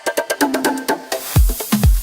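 Afro house dance music at a short break: the kick drum drops out, leaving light clicking percussion and a short melodic figure. A swelling hiss then leads the kick drum back in about two-thirds of the way through.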